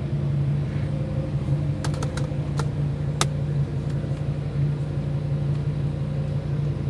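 Fiat Marea 2.4's five-cylinder engine idling steadily in slow traffic, heard from inside the cabin as a low, even hum. A few sharp clicks come about two to three seconds in.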